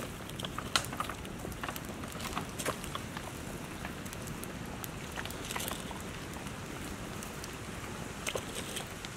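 Soup simmering in a metal pot over a crackling wood fire as it is stirred, with scattered sharp clicks from the fire and from the ladle and spoon against the pot.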